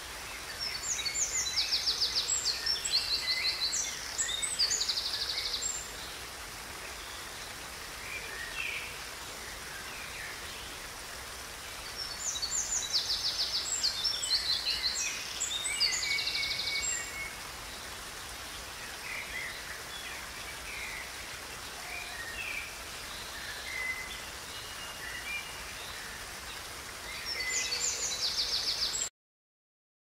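Steady splashing of a small waterfall trickling over rocks, with a songbird singing three spells of high, rapid trilled phrases: about a second in, around twelve seconds in and near the end. The sound cuts off abruptly just before the end.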